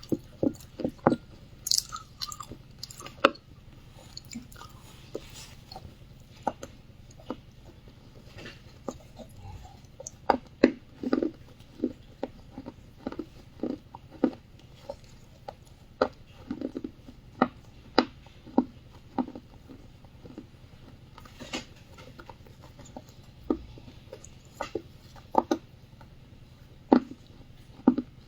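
A person biting and chewing wet clay close to the microphone: irregular, crisp crunches, one or two a second, with short pauses between chews.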